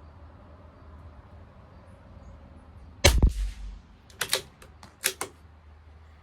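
A single rifle shot about three seconds in, with a deep boom and a short echo, followed by two quick sets of sharp metallic clicks about a second and two seconds later.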